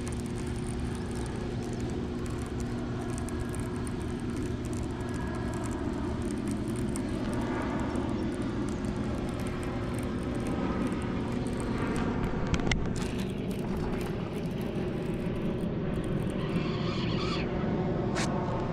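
Steady low rumble with a constant hum, typical of a hydroelectric dam's powerhouse and outflow. A couple of sharp clicks come about two-thirds of the way through.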